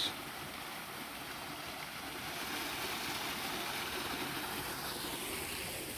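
A small woodland waterfall splashing steadily into a shallow brook: an even rush of falling water that swells slightly in the middle.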